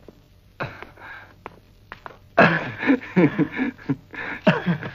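Men laughing in quick, choppy bursts, starting about halfway in after a few faint breathy sounds.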